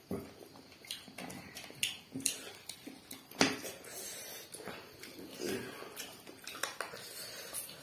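Close mouth sounds of eating by hand: chewing and wet lip-smacking, with scattered sharp clicks and light scrapes of fingers and rice against metal woks. A louder smack comes about three and a half seconds in.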